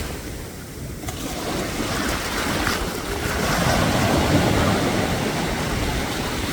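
Choppy sea waves washing in the shallows, the surf swelling louder about halfway through, with wind rumbling on the microphone.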